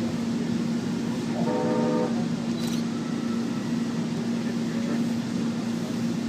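Push-button train horn giving one short toot about a second and a half in, over a steady low hum, with a couple of sharp clicks.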